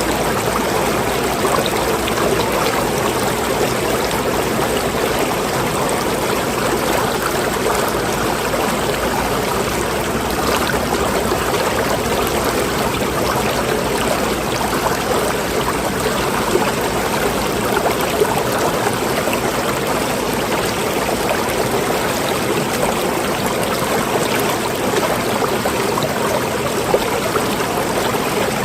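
Running water flowing and trickling steadily, with no change in flow.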